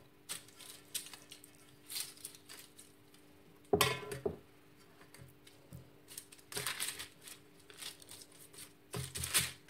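Silicone pastry brush swishing butter over parchment paper in a metal cake tin, the paper rustling and crinkling, with a louder knock about four seconds in.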